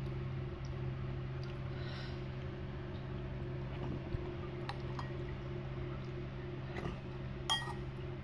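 A steady low hum, with a few faint clicks and clinks in the second half as a metal spoon taps and scrapes a ceramic bowl of leftover noodle broth.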